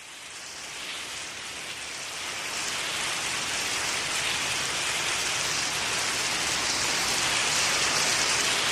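A steady, rain-like rushing hiss that fades in from silence over the first few seconds and then holds even.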